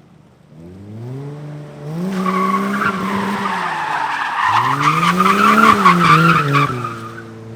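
Car engine revving up and dropping back twice while the tyres squeal in a drift. The squeal comes in about two seconds in and fades near the end, leaving the engine running at a steadier pitch.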